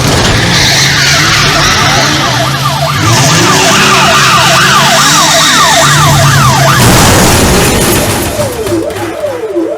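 Police car siren sound effect: a fast yelp sweeping up and down about three times a second, over heavy noise and a low steady hum. Near the end it changes to a lower-pitched up-and-down sweep.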